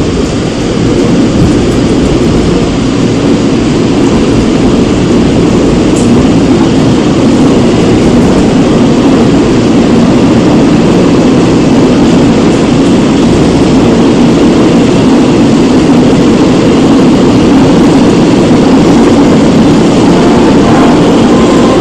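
Running noise of a Seoul Metro Line 2 old 2000-series resistor-controlled electric train, heard aboard: a loud, steady rumble of wheels and traction motors that builds slightly in the first couple of seconds, then holds.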